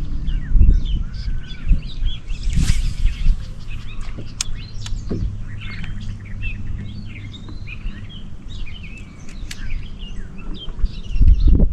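Many small birds chirping and calling in quick short notes over a low steady rumble, which swells louder near the end. A brief rushing noise comes a couple of seconds in.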